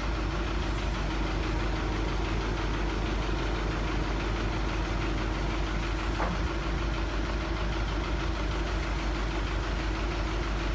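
An engine idling steadily, an even drone with a constant low hum and no change in speed. One faint click about six seconds in.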